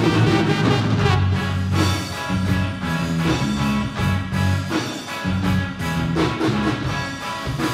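Live band playing an improvised instrumental jam, with a steady beat and held bass notes.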